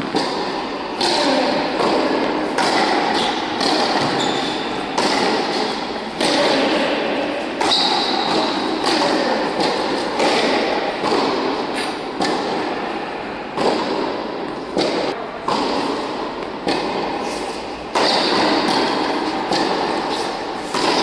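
Tennis ball struck by rackets and bouncing on an indoor hard court during a rally, a sharp hit every second or so, each echoing through the large hall.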